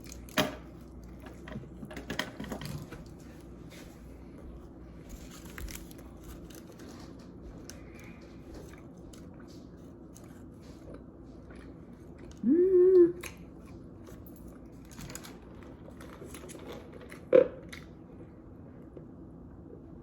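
A person biting into and chewing a burger topped with crunchy chicken nuggets, with scattered clicks and crunches. A short, loud pitched sound rises and holds about twelve seconds in, and a sharp click comes near the end.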